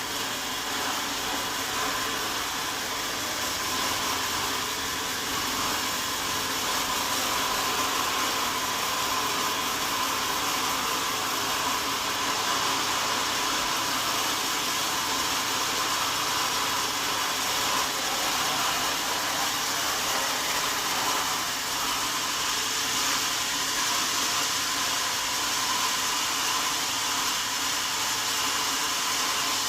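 Sawmill saw running steadily, an even mechanical whir with a slight higher whine that strengthens for a few seconds in the middle.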